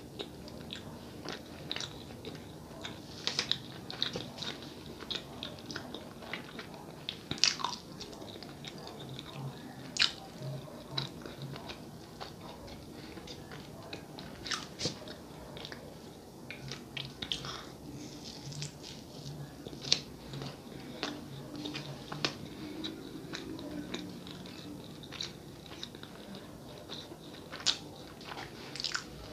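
Close-miked ASMR chewing of a soft sonho, a Brazilian sweet fried bun filled with goiabada (guava paste): many short mouth clicks and smacks at irregular intervals.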